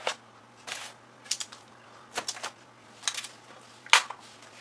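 Handling noise inside an opened LCD TV: a series of short clicks and crinkles, roughly one a second, as cables and tape are moved out of the way. The sharpest click comes about four seconds in.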